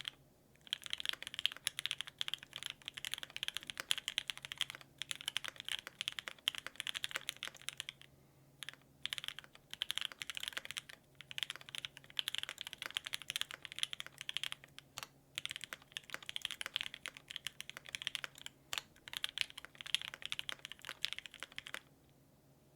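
Fast typing on an Exclusive E7-V2 75% mechanical keyboard with a full aluminium plate, lubed and filmed H1 switches and GMK keycaps: a dense run of key clacks broken by brief pauses. The typing stops about a second before the end.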